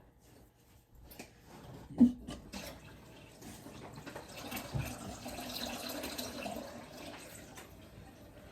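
A single knock about two seconds in, then a drink being poured: liquid running into a glass for about four seconds, swelling and then tapering off.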